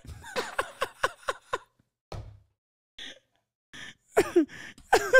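A man laughing in quick 'ha' pulses, then drawing a couple of gasping breaths, then laughing again near the end.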